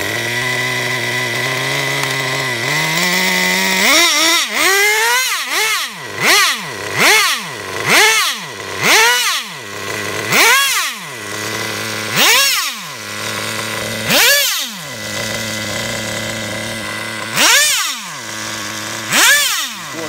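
Traxxas Jato 3.3's two-stroke nitro engine running with the car standing still. It idles steadily at first, then is revved sharply about a dozen times, each rev dropping back to idle: throttle blips while the engine is being tuned.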